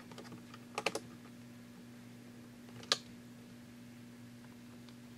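Small clicks and taps of a precision screwdriver and tiny screws on the 2007 MacBook's battery-bay L bracket as it is screwed back in: a quick run of about four clicks about a second in and one sharper click near three seconds, over a faint steady hum.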